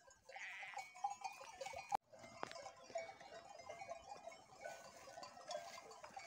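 Faint sounds of a flock of sheep grazing in tall grass, with scattered light tinkling throughout.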